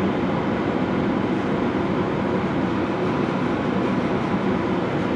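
Steady mechanical running noise from the refrigeration equipment's machinery compartment, an even whir with no distinct clicks or changes.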